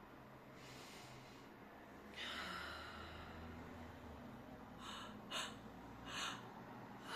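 A person breathing audibly during a sleepy morning stretch: a faint breath, then a longer, louder breath about two seconds in, then three short, sharp breaths through the nose near the end.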